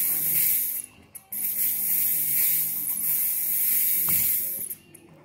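Loud hissing spray of smoke or fog being blown into a room, in long spurts with a brief break about a second in, stopping again shortly before the end.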